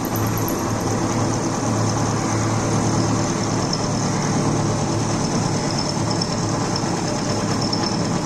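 Gear-type drilling-cum-milling machine running steadily, its 1 HP three-phase motor, V-belt and gearhead making a continuous even hum with a faint high whine.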